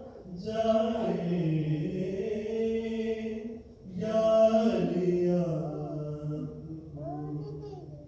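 A voice chanting a devotional song in long, slowly bending held notes, in two phrases with a short break about four seconds in.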